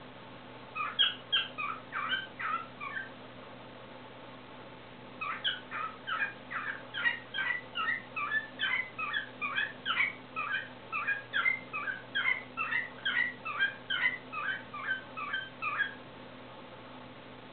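Male cockatiel singing: a short run of whistled chirps, a pause of about two seconds, then a long warbling song of quick repeated whistled notes, about three a second, that stops shortly before the end.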